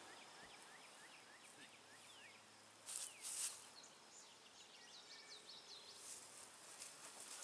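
Near silence: faint, short, high chirps repeating a few times a second, with a brief rustle about three seconds in.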